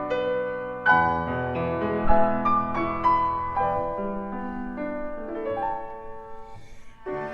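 Slow, gentle piano music: a melody over chords, fading toward the end.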